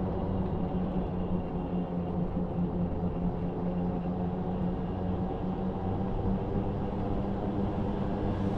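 A vehicle's engine running steadily while it drives along, a constant low drone over the rumble of the ride.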